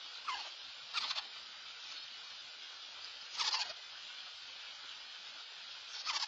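Screech-owl giving four short, harsh calls that drop in pitch, spaced a second or more apart.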